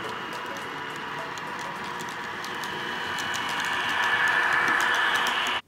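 N gauge model trains running on the layout: a steady electric motor whine and hiss with irregular clicking of wheels over the track. It grows louder from about three seconds in as a model Virgin Pendolino passes close, then cuts off abruptly near the end.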